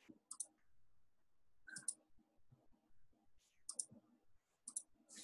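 Near silence broken by faint, sharp clicks that come in close pairs about four times.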